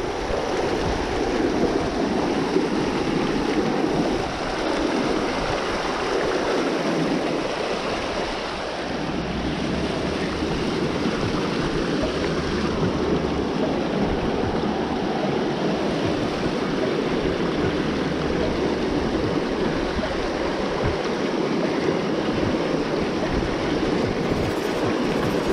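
Fast creek water rushing and tumbling over rocks in whitewater riffles: a steady, even rushing noise close by.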